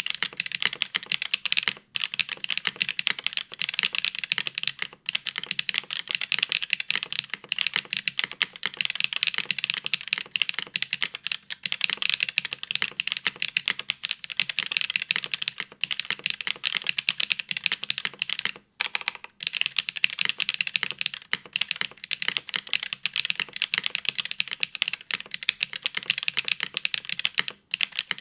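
Continuous fast typing on a Baionlenja Gehirn TKL custom mechanical keyboard with dry (unlubricated) WINGTREE Nezuko 55 g switches, GMK Norse keycaps, a top-mounted aluminium plate and no foam: a dense stream of keystroke clacks, broken by a few short pauses.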